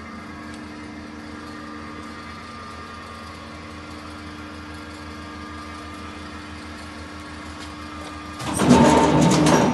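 Amada guillotine sheet-metal shear powered up and running with a steady hum. About eight and a half seconds in, a much louder mechanical clatter starts.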